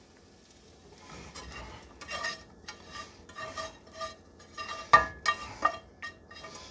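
Plastic slotted spatula scraping browned ground beef out of a nonstick skillet into a pot: a quick run of scrapes, the pan ringing faintly with each stroke, with a few sharper knocks about five seconds in.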